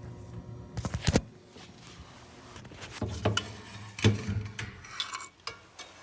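Scattered metallic clinks and knocks, loudest about a second in and about four seconds in, over a faint low hum.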